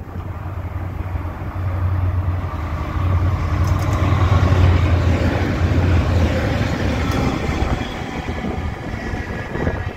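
Two Class 68 diesel locomotives hauling a freight train of flask wagons past: a steady low diesel drone that grows louder as the locomotives draw level, about four to five seconds in, with the wagons' wheel and rail noise running on behind it.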